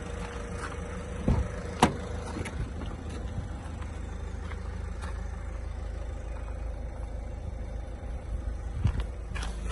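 Citroën Berlingo van's 1.6 BlueHDi four-cylinder diesel engine idling steadily, with a few sharp knocks about a second and two seconds in and again near the end.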